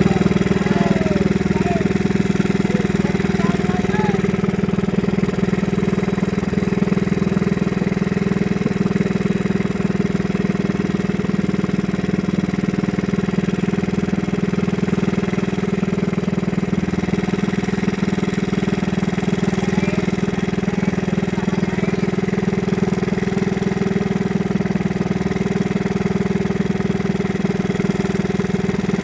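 A small fishing boat's engine running steadily at constant speed, a steady low drone.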